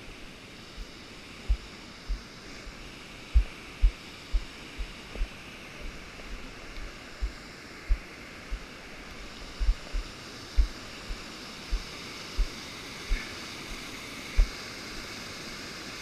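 Steady rush of waterfall water, with irregular low thumps on the microphone, about one or two a second.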